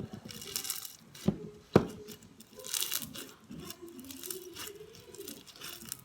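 Slime being worked and pulled apart by hand, giving sticky crackling and tearing sounds, with two sharp clicks a little over a second in.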